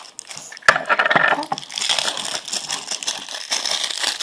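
Plastic packaging being torn open by hand, crinkling and crackling, with a sharp snap just under a second in.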